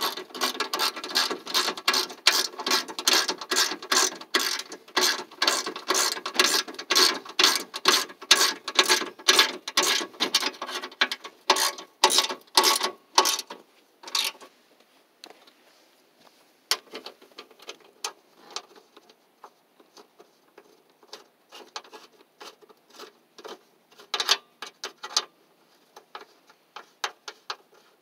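Socket ratchet wrench clicking rapidly as it is swung back and forth to run a bolt into the radiator support. About halfway through, the clicking thins to short, scattered runs.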